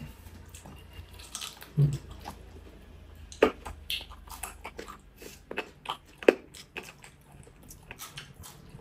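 Close-miked eating: chewing and biting with wet mouth clicks and a few sharper crunches standing out.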